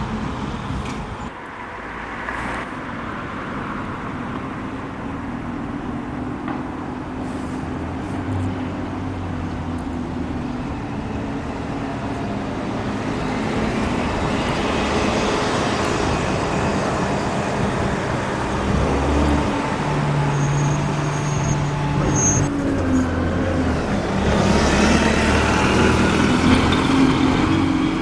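Bus engines running and pulling away, with steady road-traffic noise; the engine hum shifts in pitch and grows louder in the second half.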